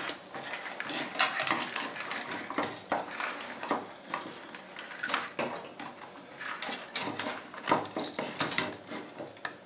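Hands handling an electrical cord, wires and a plastic electrical box and wall plate on a workbench: irregular light clicks, taps and rustles.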